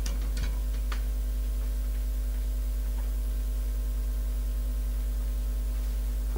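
Steady electrical mains hum, a low buzz with several steady tones above it, and a few faint clicks in the first second.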